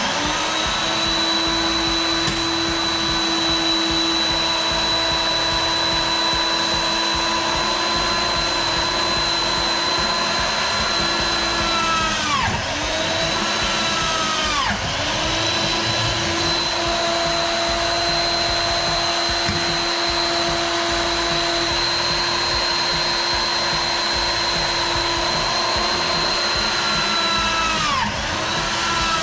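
Benchtop drill press running with a steady motor whine while drilling metal tubing. Twice around the middle and once near the end the pitch drops sharply and then climbs back up.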